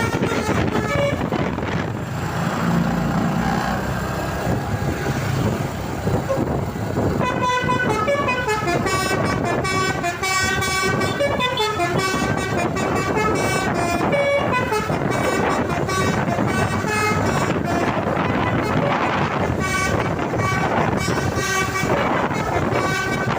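Bus telolet horn, a Basuri multi-tone air horn, playing fast stepping melodies of several notes in repeated phrases, mostly from about seven seconds in, over steady road and engine noise.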